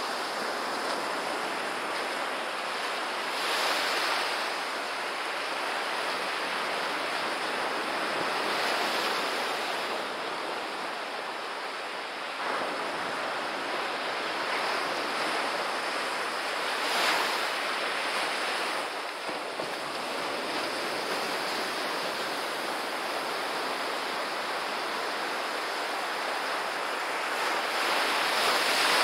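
Ocean surf breaking and washing up a sandy beach: a continuous rush of water that swells every several seconds as each wave breaks, loudest near the end.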